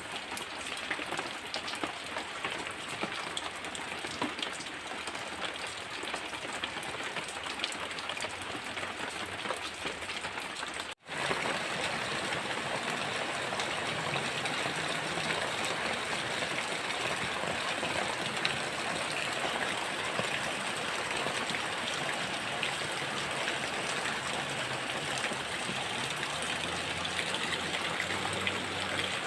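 Heavy rain falling steadily. About eleven seconds in, the sound cuts out for an instant and comes back slightly louder.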